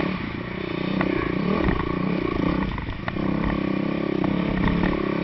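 Dirt bike engine running under way on a sand trail, its pitch rising and falling with the throttle, easing off about two to three seconds in before picking up again. There are scattered light clicks and knocks from the bike over the rough ground.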